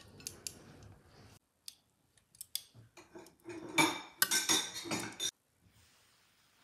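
Metal kitchen tongs clicking and scraping against ceramic plates while food is set on them. Scattered clicks at first, then a denser, louder clatter about four seconds in that cuts off suddenly a little past five seconds.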